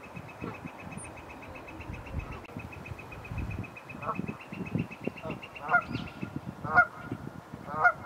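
Geese honking: a few loud honks about a second apart in the second half, the loudest near the end.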